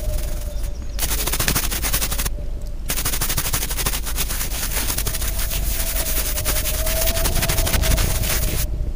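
Toothbrush bristles scrubbing the wet metal frame of an old derringer: a dense, rapid scratching that breaks off briefly twice in the first few seconds.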